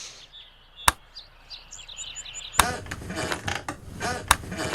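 Added sound effects: a sharp click about a second in, then a string of short high chirps. From about halfway there is a dense clatter of clicks and whirring mechanical sweeps.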